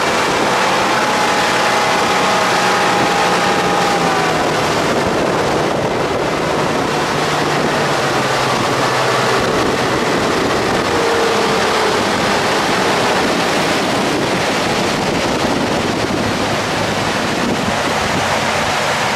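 A boat engine running under a steady rush of water along the hull and wind buffeting the microphone. The engine hum fades partway through, leaving the rush of water and wind.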